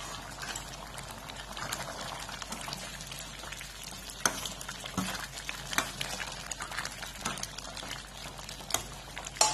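Thick chayote and chana dal kootu boiling in a steel kadai, bubbling steadily while a steel ladle stirs it, with scattered sharp clicks.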